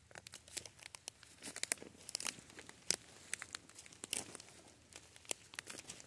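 Footsteps crunching and crackling through wet leaf litter and small twigs, an irregular run of sharp crackles.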